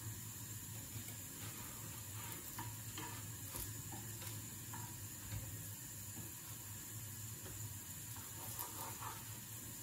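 Food frying in oil in a pan: a soft, steady sizzle with scattered light clicks, over a low steady hum.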